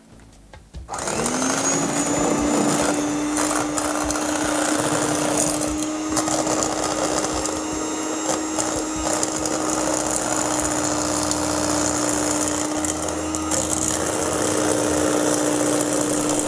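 Electric hand mixer switched on about a second in, its motor spinning up to a steady hum as the beaters whip egg whites with sugar into meringue in a stainless steel bowl. It winds down at the very end as it is switched off.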